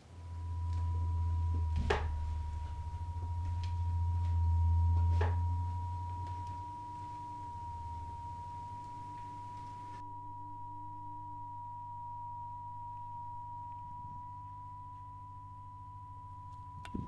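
Experimental drone from an electric guitar and mixer rig: a steady high pure tone held throughout over a low electric hum that swells for the first six seconds and then eases. A couple of sharp clicks come about two and five seconds in.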